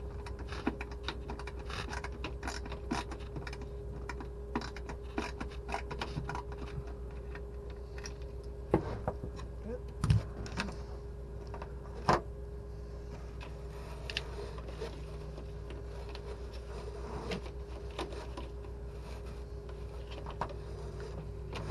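Ratchet wrench clicking rapidly as the clamp holding the gas line to the frame is unscrewed, the clicks thinning out about halfway through, with a few sharp knocks from about nine to twelve seconds in.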